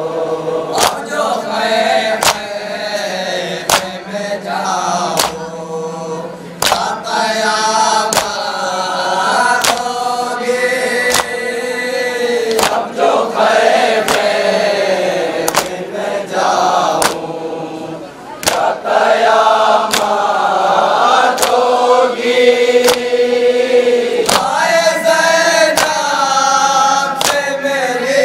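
A man singing an Urdu noha (Muharram lament) through a microphone and loudspeaker, with a group of men joining in chorus. Under the singing runs a steady beat of sharp slaps, about one a second, from the mourners beating their chests (matam).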